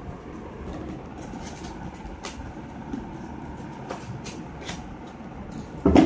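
Steady low rumble with a few faint clicks, and one loud, short thump near the end.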